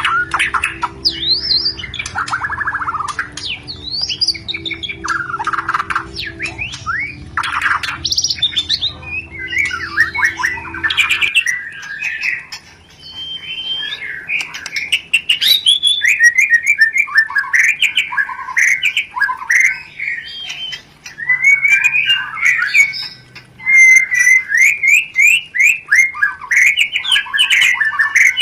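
White-rumped shama (murai batu) giving rapid, harsh chattering calls mixed with short trills, the excited breeding-time 'rencetan' used as a lure to stir captive birds into mating condition. The calls come in dense runs with brief pauses, over a faint low hum that stops about a third of the way in.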